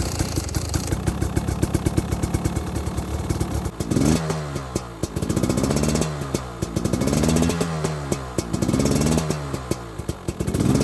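Two-stroke dirt bike engine, just started, idling fast, then blipped over and over from about four seconds in, each rev rising and falling about every second and a half.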